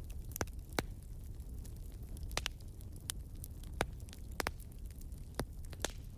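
Wood fire crackling: irregular sharp pops, about ten in all, over a steady low rumble.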